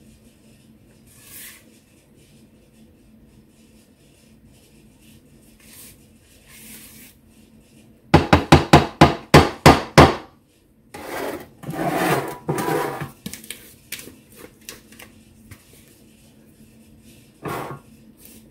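Rubber spatula working thick batter out of a ceramic mixing bowl into a metal loaf pan: faint scraping, then about eight seconds in a quick run of about a dozen sharp knocks as batter is knocked off the spatula, followed by more scraping.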